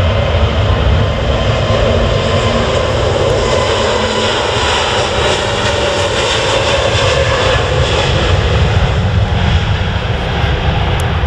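Jet airliner's engines roaring loud and steady as it passes close by on the runway, the noise swelling towards the middle and easing a little near the end.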